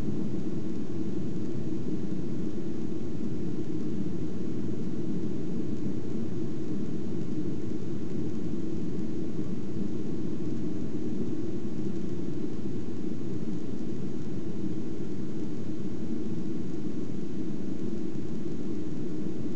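Steady jet engine and airflow noise inside the cabin of a Boeing 737-800 climbing after takeoff: an even, unbroken low rumble with a hiss above it.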